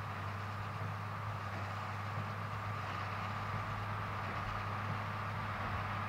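Ford 8830 tractor's diesel engine running steadily as it pulls a New Holland BB940 large square baler along the windrows, heard from a distance: a steady low hum with a higher whine, growing slightly louder as the rig comes closer.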